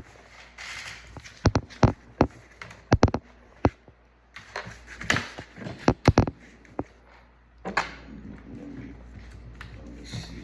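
Laptop bottom cover being handled and fitted into place: a string of sharp clicks and knocks with a few short scraping sounds.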